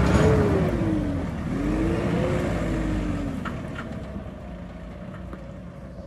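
JCB backhoe loader's diesel engine driving off under throttle: its revs drop about a second in and pick up again, and the sound fades as the machine pulls away.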